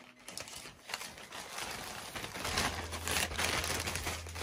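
Plastic mailer bag crinkling and rustling as it is cut open with scissors and pulled apart, with short sharp snips and crackles that grow busier and louder toward the end.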